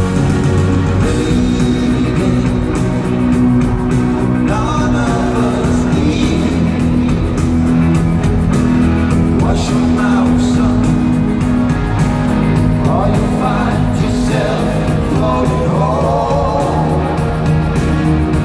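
Live pop band playing in an arena, heard from the audience: a male voice sings a wavering melody over held bass notes, drums and guitar, the singing coming in about four and a half seconds in.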